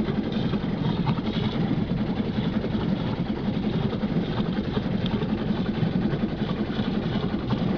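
Motorboat engine running steadily at low speed, an unchanging low drone with water and wind noise above it.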